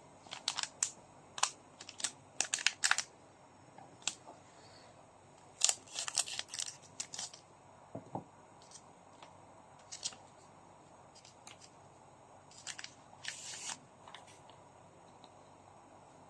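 Trading card packs and cards being handled: scattered sharp clicks, crinkles and rustles in short clusters, with quiet gaps between.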